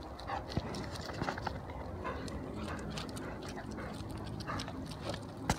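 Bernese mountain dog puppies and an adult Bernese padding over gravel: paws scuffing and clicking on loose stones in an uneven patter, with a sharper click near the end.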